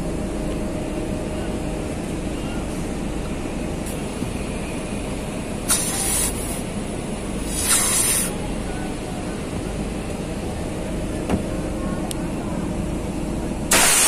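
Compressed nitrogen hissing out of a window air conditioner's condenser coil as it is flushed: two short blasts about six and eight seconds in, and a louder one starting at the very end, over a steady background rumble.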